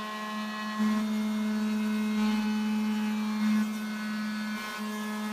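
Handheld router running at a steady pitch, its bit cutting along the edge of a wooden workbench top, with brief surges in loudness about a second in and again past the middle.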